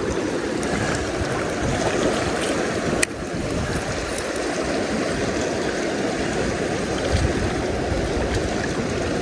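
Steady rush of river water flowing, with a single sharp click about three seconds in.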